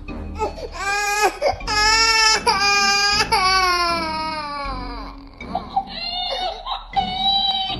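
Baby crying: a run of loud, high-pitched wails, the last one long and falling in pitch, then quieter, steadier cries near the end.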